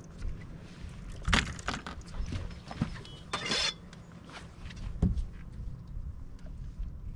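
Knocks and clatter of fishing rods and gear being handled on a bass boat's deck, several sharp knocks spread through, over a steady low hum.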